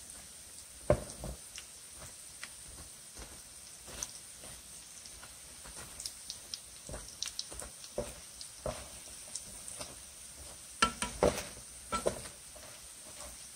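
Doughnuts frying in shallow oil in a pan: the oil crackles with scattered small pops. A metal spatula knocks and scrapes against the pan a few times, loudest about a second in and around eleven to twelve seconds.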